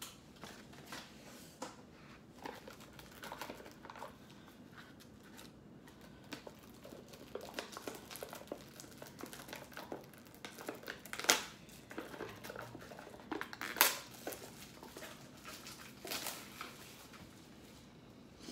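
Plastic food packaging crinkling and rustling as it is handled, with scattered light clicks and taps on a table and two sharper knocks past the middle.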